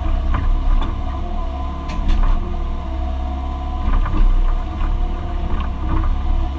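Excavator heard from inside its cab, engine and hydraulics running steadily as a low drone with a few held tones while the boom and bucket work. Scattered clunks and knocks come through, most around two seconds in and again about four seconds in, as the bucket digs into soil and stump roots.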